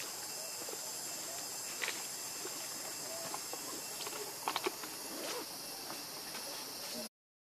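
Steady high-pitched insect chorus, with a few faint short clicks scattered through it. The sound drops out to silence for a moment near the end.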